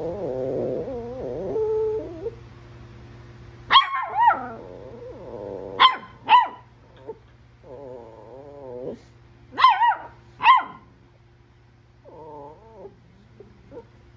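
Small dogs growling and yapping at each other in a play standoff: low, wavering growls run between three pairs of sharp, high-pitched barks, which are the loudest sounds.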